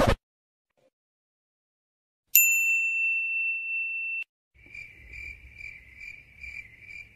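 A steady high electronic beep held for about two seconds and cut off abruptly, followed by a cricket-chirping sound effect: evenly repeated high chirps about twice a second, the stock 'awkward silence' crickets.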